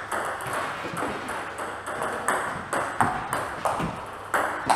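Table tennis rally: the plastic ball clicks sharply off the bats and the table, two to three hits a second.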